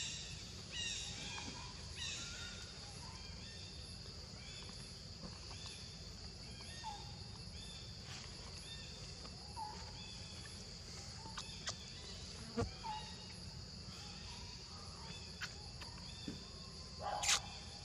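Outdoor ambience: a steady high insect drone with short bird calls repeating about once a second, and a brief louder sound near the end.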